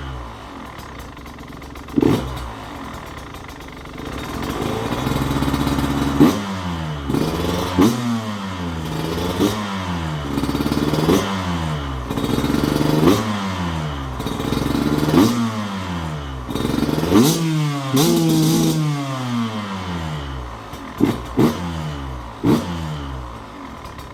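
2021 KTM EXC 150 two-stroke engine, with an HGS header pipe and stock silencer, idling and then revved in a long series of quick throttle blips. The pitch climbs and falls again every second or two. It drops back to idle near the end.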